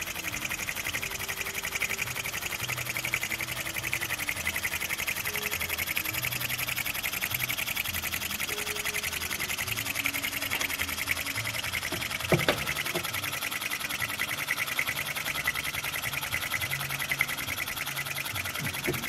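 Model single-acting steam engine with a spherical piston and oscillating valve running fast on steam: a rapid, even chuffing and mechanical clatter. A few sharp knocks about twelve seconds in.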